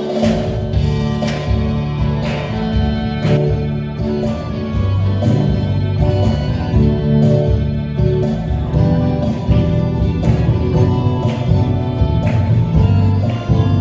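Live band music led by guitar over a steady bass line, instrumental with no singing.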